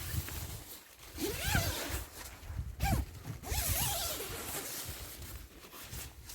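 A tent zip pulled open in three strokes, each with a rising and falling pitch.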